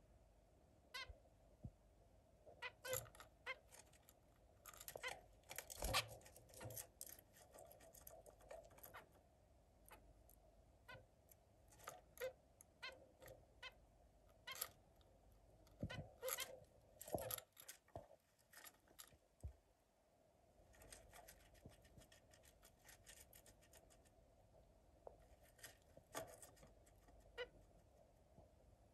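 Zebra finches at a wooden nest box: scattered faint short calls and clicks from the birds moving about, over a faint steady hum.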